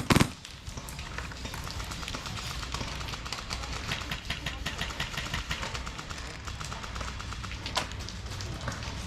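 A sharp airsoft gun shot right at the start, then steady outdoor noise with faint rapid ticking and one sharper click near the end.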